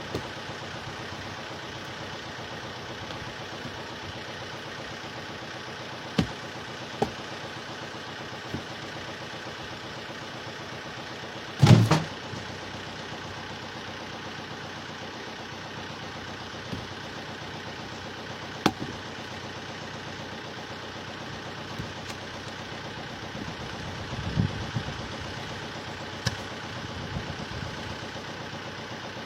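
A motor running steadily, with scattered knocks and one louder thump about twelve seconds in.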